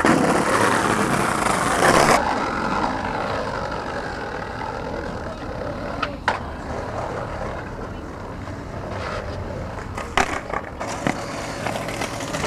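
Skateboard wheels rolling on rough promenade paving, with a sharp clack of the tail popping against the ground about halfway through and a few more clacks near the end as a trick is popped. It opens with about two seconds of loud rushing noise that cuts off suddenly.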